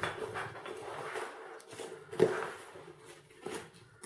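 Hands handling a synthetic-fabric fishing bag: irregular rustling and rubbing of the fabric as its pockets are pulled open, with one louder rustle about two seconds in.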